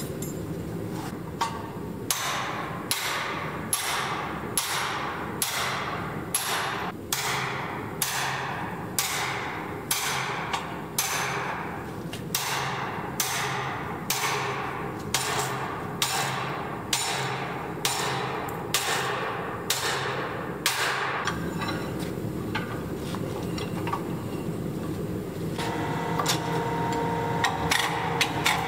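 Hand hammer blows on hot steel: a handled forging tool is set on a glowing axe blank clamped in a vise and struck in a steady rhythm of about three blows every two seconds, each a sharp metallic strike, over a constant background hum. The blows stop about two-thirds of the way through, and near the end a steady machine hum with a held tone comes in as the power press starts up.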